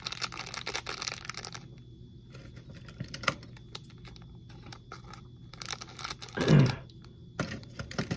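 A plastic candy wrapper crinkling as it is handled. It gives way after about a second and a half to scattered handling clicks, with one louder thump about six and a half seconds in.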